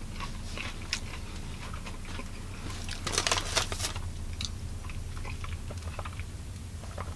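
A person chewing a mouthful of steak-and-cheese sub, with small wet mouth clicks. A louder crackle of paper or plastic comes about three seconds in. A steady low hum runs underneath.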